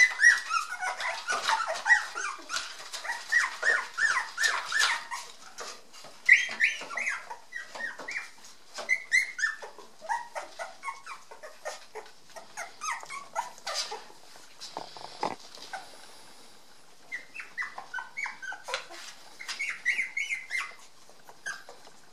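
A litter of cocker spaniel puppies squeaking and whimpering in many short, high-pitched overlapping calls. They are thick at first, thin out midway, and come in another flurry near the end.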